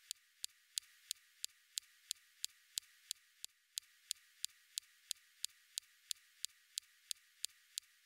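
Perseverance rover's SuperCam laser firing at a rock on Mars, picked up by its mast microphone: a steady train of sharp clicks, about three a second, each strike differing in loudness. The differing strength of the clicks is a sign of the structure of the rock being hit.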